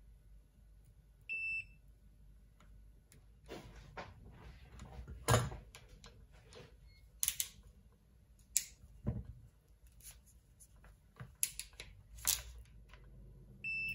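Two short, high beeps from a digital multimeter's continuity tester, one about a second in and one near the end, the sound that signals a closed circuit between the probes. Between them come irregular clicks and knocks as a crimping tool is worked on the coax's metal SO239 connector.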